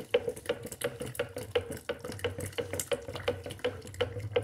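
A utensil stirring thick homemade lye soap batter in a plastic jug, knocking and scraping against the jug's walls in quick, fairly regular clicks. This is the sugar syrup being mixed into the already saponified tallow-and-oil soap.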